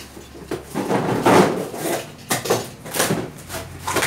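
Cardboard shipping boxes being handled: lifted, slid and set down on a stack and their flaps opened, a run of irregular scrapes, rustles and light knocks.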